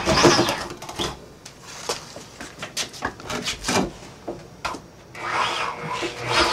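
A power tool stops right at the start. Then come scattered knocks, taps and rubbing of tools and materials being handled, with a brief rising-and-falling whir about five seconds in.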